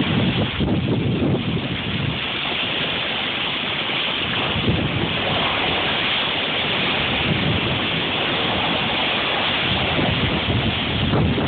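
Cyclone wind and rain, a steady loud rushing noise, with irregular gusts buffeting the phone's microphone.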